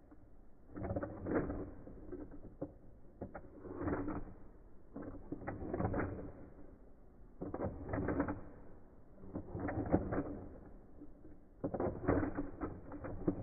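Plastic clicking and clattering in bursts about every two seconds, as battle-toy controllers are worked by hand and the figures' plastic arms strike each other.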